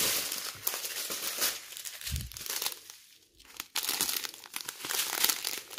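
Small plastic bags of diamond-painting drills crinkling as they are handled, with a brief lull about three seconds in.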